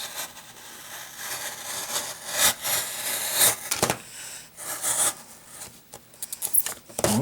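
Retail packaging being worked open by hand, probably cut with a blade: irregular scraping, rubbing and crinkling, with a few louder sawing strokes.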